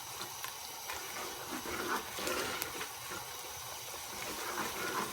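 Onion, tomato and spice masala sizzling and bubbling in hot oil in a pan on a high flame, with a couple of light clicks.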